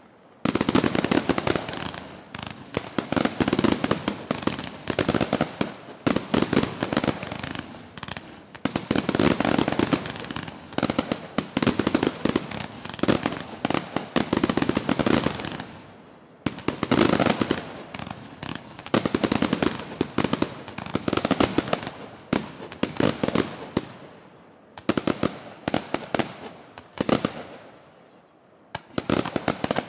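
Fireworks display: rapid volleys of bangs and crackling shells going off in dense waves, with brief lulls about halfway through and near the end.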